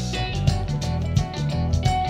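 Music demo with guitar over a heavy bass and a regular beat, played through a pair of studio monitors and picked up by a binaural microphone in the room.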